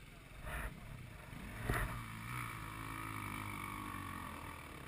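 Enduro motorcycle engine running steadily some distance off, after a sharp knock about two seconds in.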